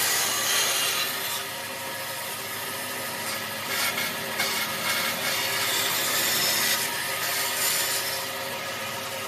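A tool working wood with a steady rubbing, rasping sound, over a constant hum.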